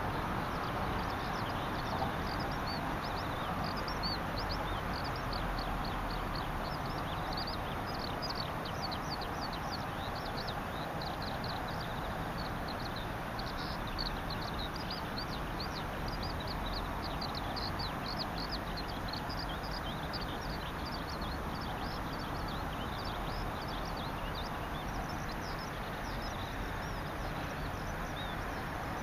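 Small birds calling in a rapid run of short, high chirps, thickest in the middle and thinning near the end, over a steady rushing background noise.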